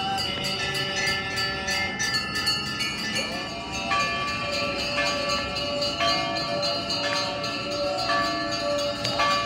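Bells ringing: several long ringing tones overlap, new ones coming in one after another, over a steady jingling beat.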